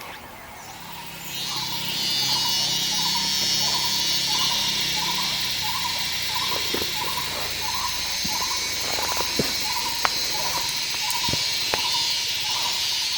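Dense insect chorus in tropical forest, a steady high-pitched buzzing drone that swells up about a second and a half in. A short repeated note sounds through it about one and a half times a second, with a few sharp clicks.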